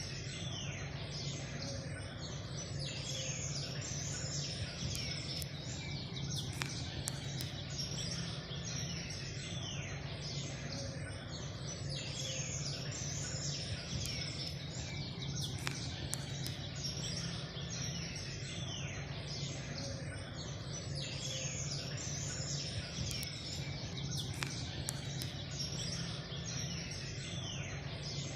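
Birds chirping and twittering in repeated bursts over a steady low hum.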